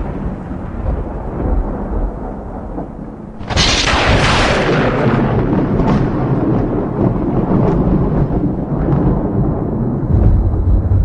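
Thunder: a rumble dying away, then a close lightning strike with a sharp crack about three and a half seconds in, followed by long rolling rumble that swells again near the end.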